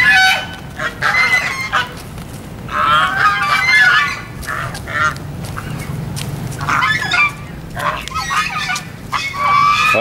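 A flock of white domestic geese honking repeatedly in short bouts of overlapping calls, agitated at people coming near.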